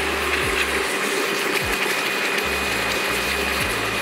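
Pressure washer spraying its lance into a bucket of shampoo and water, churning it into foam: a steady rush of water with a steady machine whine.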